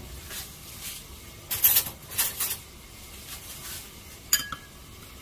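Metal spoon stirring a thick chili-powder seasoning sauce in a small ceramic bowl, making several short scrapes against the bowl. About four seconds in there is one sharp, ringing clink of the spoon on the bowl's rim.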